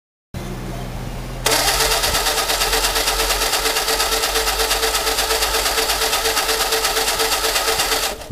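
Ford 100E side-valve four-cylinder engine being cranked by its starter motor on a first start attempt after decades laid up. It turns over in an even rhythm of about six or seven compression pulses a second over a steady starter whine, and stops near the end.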